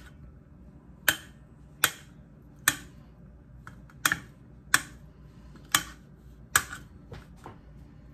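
Kitchen knife blade striking a speckled enamelware plate while chopping hard-boiled eggs: a sharp click with each cut, about one a second.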